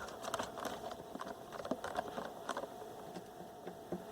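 Faint, irregular clicks and crackles from a vintage portable radio and its AC line cord being handled while the set is checked for an intermittent break in the cord.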